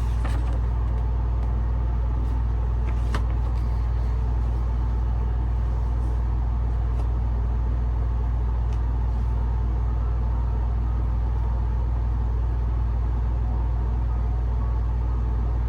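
Steady low hum with no change in level, and a few faint clicks.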